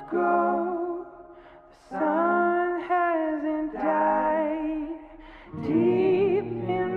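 Background music: a song with a singer holding long, wavering notes in separate phrases, with short breaks between them.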